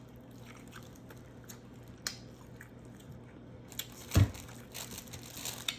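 Close-up eating sounds: soft chewing and wet mouth clicks, with a sharper click about two seconds in and a louder thump just after four seconds, then a stretch of light rustling near the end.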